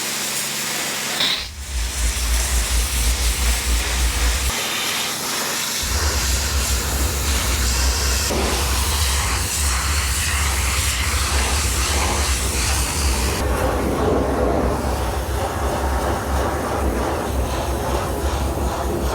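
Pressure washer spraying, a steady hiss of the water jet over the pulsing hum of its pump, which drops out for about a second around five seconds in: cleaning dirt off a skid steer bucket's leading edge before welding.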